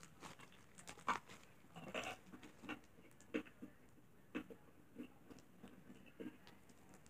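Slime being squeezed and kneaded in the hands, giving irregular soft, wet clicks and pops.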